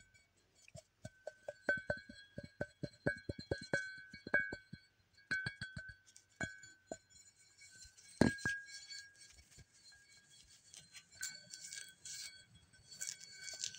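Ceramic mugs being handled and tapped: a quick run of light knocks, each ringing briefly at the same clear pitch, then one louder knock about eight seconds in, with faint rustling near the end.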